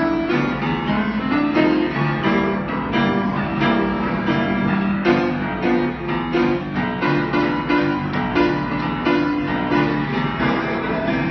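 Grand piano played live, an unbroken run of struck notes and chords.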